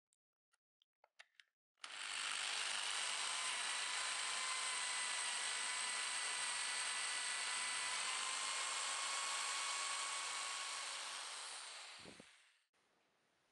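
Electric drill running steadily with a twist bit boring a hole through a strip of timber, with a steady whine over the drilling noise. A few light clicks come before it starts, and it winds down and stops near the end.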